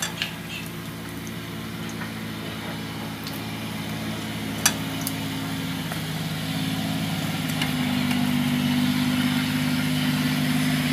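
Hot oil sizzling faintly in a wok while battered fried shrimp are lifted out with chopsticks, with a few sharp clicks of the chopsticks, one louder about five seconds in. Under it a steady low motor-like hum grows louder.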